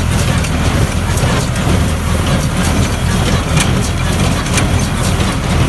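International Harvester 644 tractor's diesel engine running steadily with a Welger AP 52 square baler, with a sharp click or knock about once a second over the engine.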